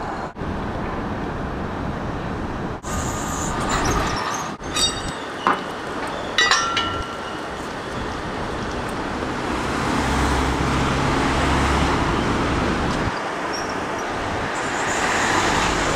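Street noise and a Melbourne tram moving slowly through a terminus siding, its wheels running on the rails. Brief metallic clanks with short ringing squeals come about five and six and a half seconds in, and a low steady rumble runs for a few seconds in the second half.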